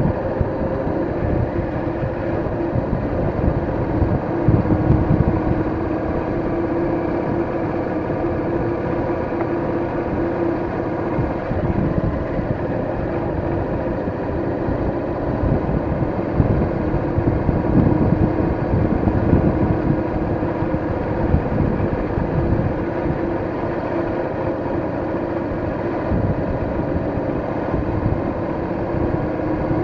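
Cruiser motorcycle engine running steadily at a constant road speed, with a constant drone, heard from the rider's seat. Wind rumbles across the microphone under the engine note.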